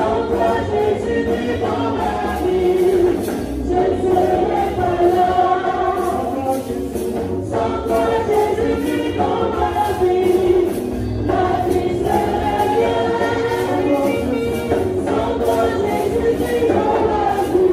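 A mixed youth choir singing together in chorus, several voices amplified through handheld microphones.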